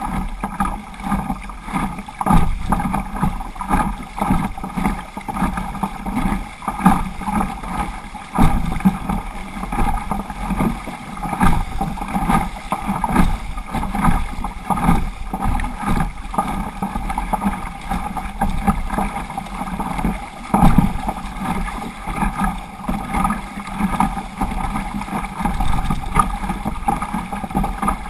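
Water splashing and sloshing against the bow of a plastic sit-on-top kayak, swelling with each paddle stroke about every second or two, with wind buffeting the microphone and a faint steady hum underneath.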